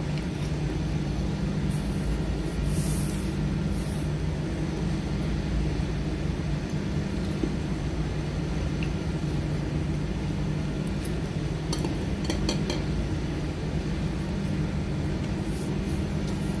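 A steady low mechanical hum, with a few light clinks of a metal fork against a ceramic bowl about twelve seconds in.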